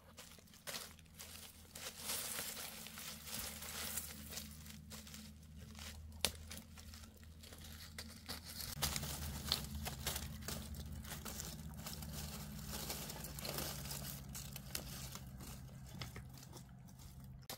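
Crinkling and rustling, dense with small clicks, over a steady low hum that changes pitch about nine seconds in.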